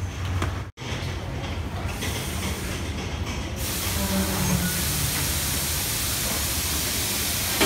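Train running on the rails: a steady low rumble, cut briefly by a gap less than a second in. About three and a half seconds in, a louder even rushing hiss joins it and holds.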